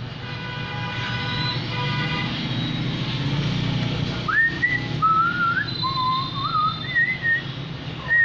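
A person whistling a wandering tune, starting about four seconds in, over a steady low background rumble. Before it, a brief steady hum of several tones.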